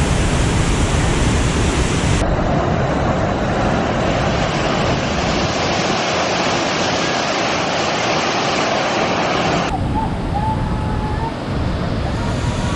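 Waterfall in heavy monsoon flow, its water rushing loudly and steadily. The tone changes abruptly about two seconds in and again near the end.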